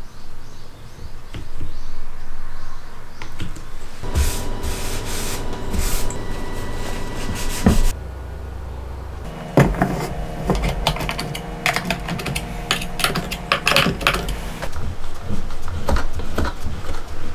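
Workshop handling sounds: a quick series of clicks and knocks as wooden parts, clamps and the router are set down and fitted together.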